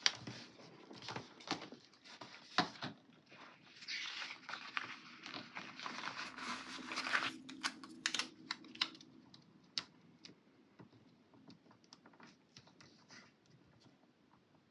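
Paper stickers being handled on a planner page: light taps and clicks as they are peeled from a sheet and pressed down, with a longer paper rustle from about four to seven seconds in. The taps thin out over the last few seconds.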